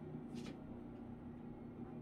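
Quiet bathroom room tone with a steady low hum, and one brief soft swish about half a second in.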